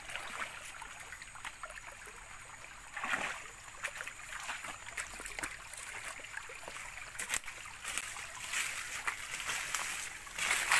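Footsteps brushing and crunching through undergrowth and dry bamboo leaves, with a stream trickling. A single sharp click stands out about seven seconds in.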